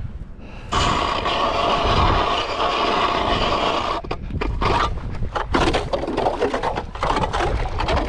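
Mora hand ice auger drilling a test hole through thin, clear first ice: the blades scrape and grind steadily, then about four seconds in the sound turns choppy and uneven as the cranking goes on.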